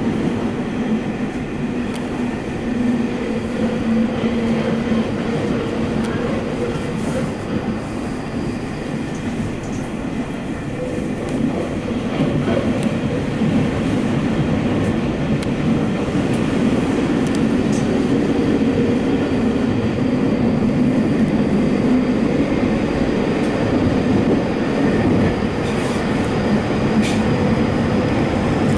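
Subway train running at speed, heard from inside the rear car: a steady rumble of wheels on rail with a droning hum, growing slightly louder over the second half.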